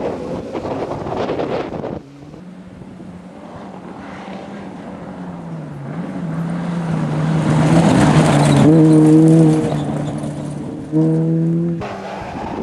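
Rally car engines revving hard at full throttle. One car builds up as it approaches and is loudest as it passes, about two-thirds of the way through. The sound jumps abruptly between shots near the start and near the end.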